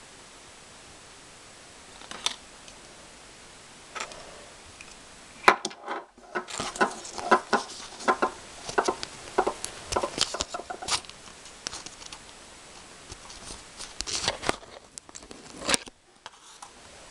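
Small plastic toy parts and packaging being handled during an unboxing: scattered clicks at first, then a dense run of sharp clicks, taps and scrapes about a third of the way in, and another burst near the end.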